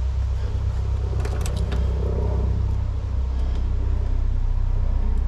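A steady low rumble throughout, with a few light clicks about a second and a half in as a conductor is worked into a terminal inside a metal disconnect enclosure.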